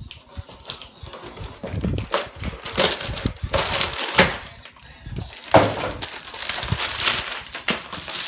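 A cardboard shipping box being opened and unpacked by hand: irregular rustling, scraping and light knocks of cardboard flaps and plastic packaging, with a foil bubble mailer being pulled out.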